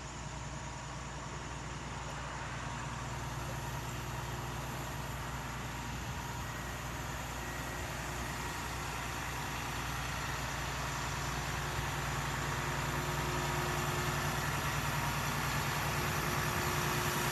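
Bucket truck's engine running steadily, powering the boom as the bucket is lowered. It grows slowly louder as the bucket comes down.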